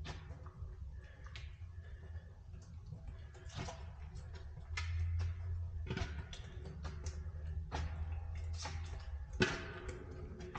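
Irregular clicks and knocks echoing inside a concrete pipe, over a steady low rumble that swells for a few seconds in the middle, with one sharper knock near the end: a camera rig knocking and scraping along the pipe floor as it is moved through the culvert.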